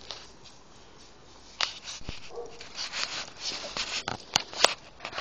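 Young Staffordshire bull terrier making short, irregular noises close to the phone, with rustling and two sharp clicks a little past four seconds in.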